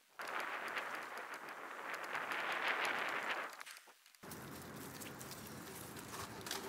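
Mountain bike riding a dirt forest trail: a rushing hiss of tyres rolling over dirt and leaves, with wind on the microphone, that swells and fades. It changes abruptly about four seconds in to a steadier rustle with many scattered clicks and rattles from the bike.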